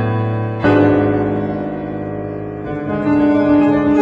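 Background piano music: slow, sustained chords, with a new chord struck about half a second in.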